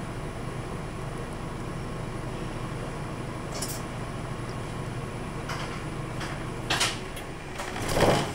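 Inside a 2006 Nissan Diesel Space Runner RA city bus: the diesel engine runs low and steady as the bus slows to a stop, with short bursts of compressed-air hiss from the air system, the loudest near the end.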